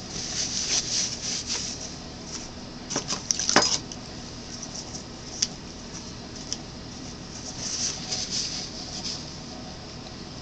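Handling noise: short scratchy rustles in two bouts, with a quick clatter of sharper clicks about three and a half seconds in, over a steady background hiss.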